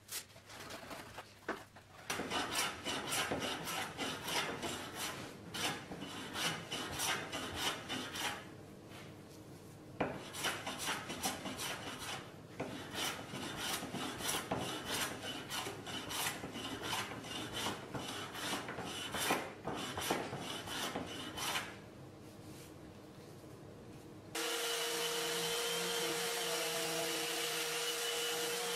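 Quick back-and-forth strokes of a hand-held block rubbing and rasping on sapele wood, in two long runs with a short pause between. Near the end a random orbital sander with a dust-extraction hose starts up and runs with a steady hum.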